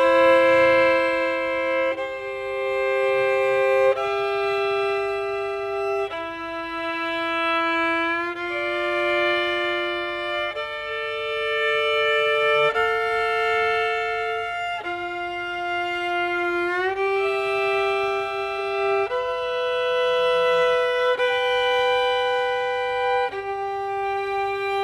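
Solo violin playing a double-stop exercise, a sixth, a fourth, a sixth and then an octave in turn, climbing up the scale. Each two-note chord is held about two seconds, and a few shifts slide audibly between positions.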